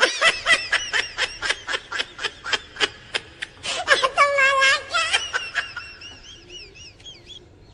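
Laughing sound effect: a fast, rhythmic snickering laugh of about four bursts a second, which breaks into one long high wavering note about four seconds in, then trails off into faint high chirps.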